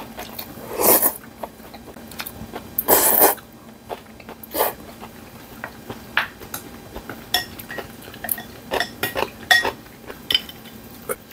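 A man eating noodles in beef bone soup: two loud slurps, about a second in and again about three seconds in, with many light clicks of chopsticks and a spoon against porcelain bowls.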